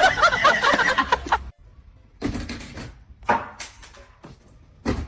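Upbeat music that cuts off abruptly about a second and a half in, followed by a few short, separate sounds from a quieter scene.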